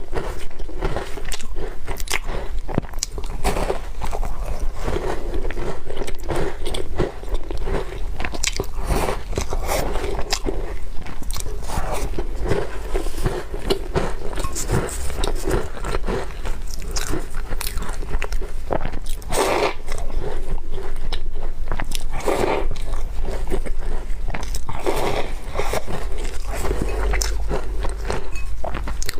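Close-miked chewing and crunching of crumbly walnut cookies. There is a steady stream of small crunches, with a few louder bites in the second half.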